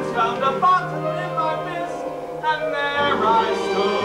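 A man singing a musical-theatre song, his voice gliding between held notes, over a low sustained accompaniment note that drops in pitch about three seconds in.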